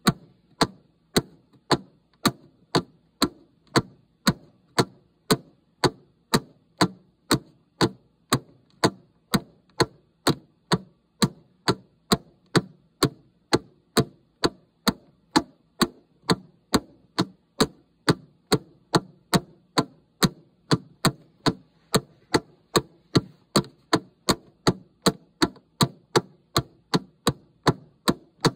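Steady clock-style ticking of a countdown timer, about two crisp ticks a second.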